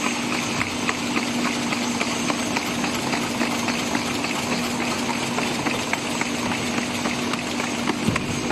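Horizontal cartoning machine for glass syrup bottles running: a steady hum under rapid, irregular clicking and clattering from its mechanism.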